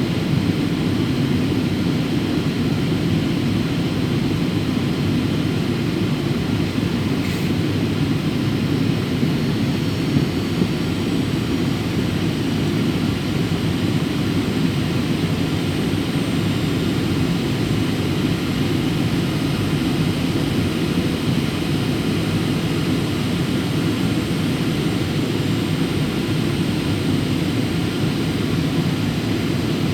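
Steady drone of a Boeing 737's engines and airflow heard inside the passenger cabin in flight, a low, even noise that does not change.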